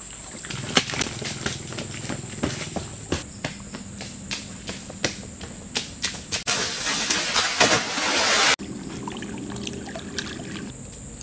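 Running footsteps slapping through mud and shallow puddles, then about two seconds of loud splashing that cuts off suddenly, as a runner falls into the water. A steady high-pitched insect drone runs underneath.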